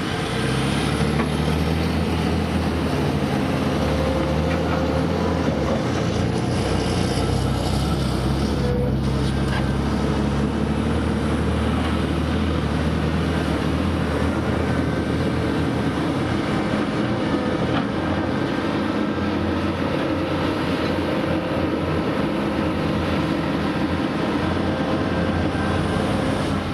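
Heavy diesel engines of a large mining excavator and off-highway dump truck running steadily under load, a deep engine drone whose pitch shifts now and then.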